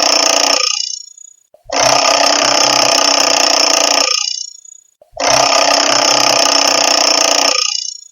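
Classic analog alarm clock ringing its bell in bursts about three seconds long. Each burst stops with a brief ring-out and is followed by about a second's pause before the next. The end of one burst is heard, then two full ones.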